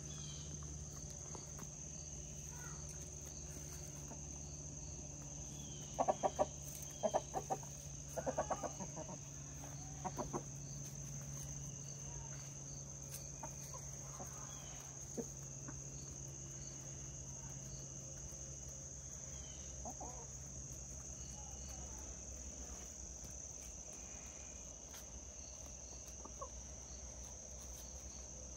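Chickens clucking in several short runs of quick clucks, mostly in the first half, with a few single clucks later. Crickets chirr steadily throughout.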